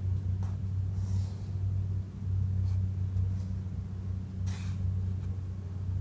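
Steady low electrical hum, with a few faint taps from fingers typing on a phone's touchscreen keyboard and a brief rustle about four and a half seconds in.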